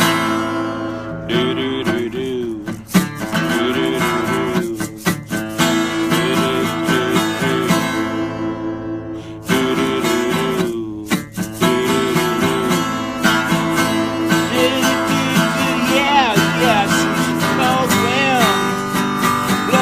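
Music: strummed acoustic guitar carrying an instrumental break in a song, with a melody line gliding over the chords.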